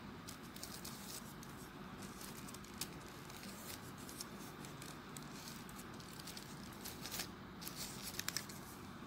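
Folded paper units of a 3D origami model rustling and ticking faintly as fingers press and brush through them, with a short run of sharper clicks near the end.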